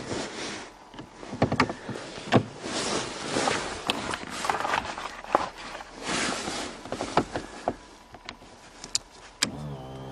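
Scattered clicks, knocks and rustling, then near the end a small car's electric fuel pump starts humming steadily when the ignition circuit is closed: the sign that the pump is working.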